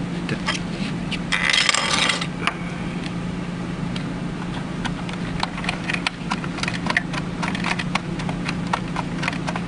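Small screws and parts of a Medifusion 3000 syringe pump being handled during reassembly: scattered light clicks and taps, with a rattling scrape about a second and a half in. A steady low hum runs underneath.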